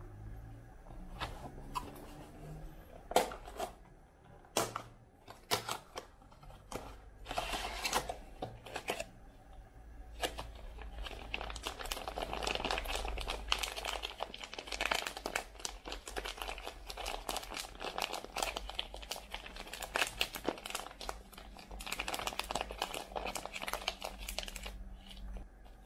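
Cardboard food carton handled and torn open by hand, with a few taps and scrapes, then a foil pouch inside crinkling steadily for most of the rest.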